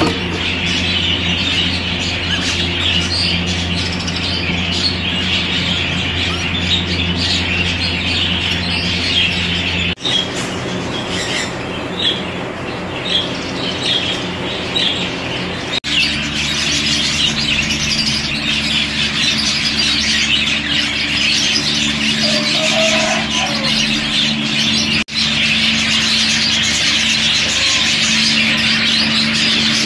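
Budgerigars chattering and chirping continuously, a dense flock-like twitter, over a steady low hum. The sound breaks off abruptly three times where clips are joined.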